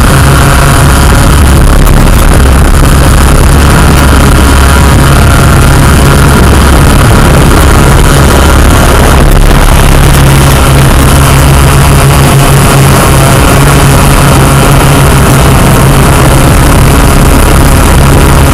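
Yuneec Q500 quadcopter's motors and propellers droning loudly and steadily, close to the onboard camera, with an even low hum throughout.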